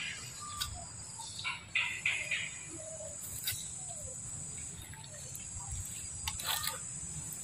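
Forest ambience: a steady high-pitched insect drone, with scattered short chirps, a cluster about two seconds in, and a few soft clicks and rustles.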